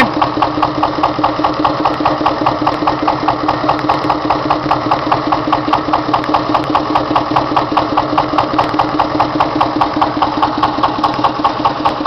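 Petter PAZ1 single-cylinder diesel engine on a Benford concrete mixer, running steadily with an even, rapid beat.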